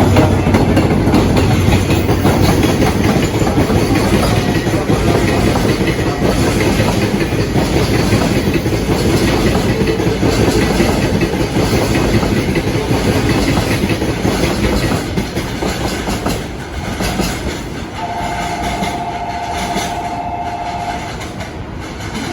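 Train running past at close range, its wheels clattering over the rail joints. The sound is loud at first and eases off after about fifteen seconds, and a steady two-note tone sounds for about three seconds near the end.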